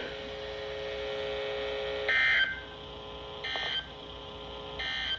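Emergency Alert System signalling tones: a steady low two-note electronic tone, broken about every second and a half by short, brighter data bursts. The first burst, about two seconds in, is the loudest.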